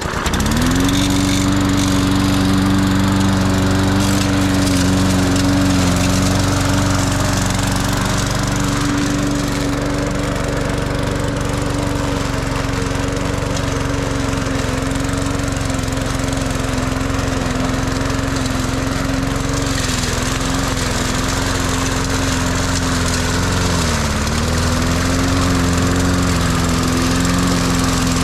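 Small single-cylinder push-mower engine catching and speeding up to a steady run, then running at a constant speed. Its speed sags briefly twice near the end.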